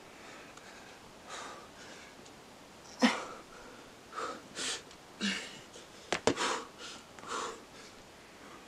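A boulderer's short, forceful breaths as he pulls through moves on the rock, about seven of them, the loudest and sharpest about three seconds in. Two quick sharp taps come a little after six seconds.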